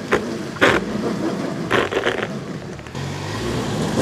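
Ford Bronco Base engine revving under load as its front tyre works onto plastic MaxTrax traction boards, getting louder, with a few sharp clacks along the way. The boards give more traction but not enough to pull the high-centred Bronco free.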